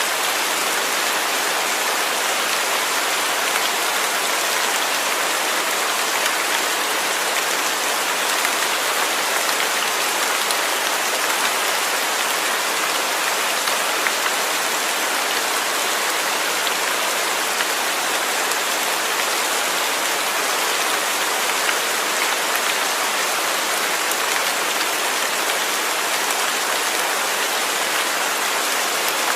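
Steady rain falling, an even hiss of many drops on a surface with no thunder.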